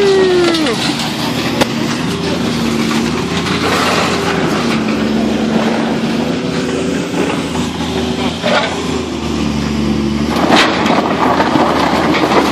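Scrap-yard grapple crane's engine and hydraulics running under load, the pitch stepping up and down as the boom works, with a few sharp clanks of scrap metal, the loudest near the end.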